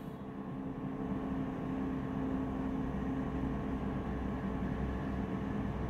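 Steady low background hum with a faint hiss, with a faint steady tone that fades away about halfway through.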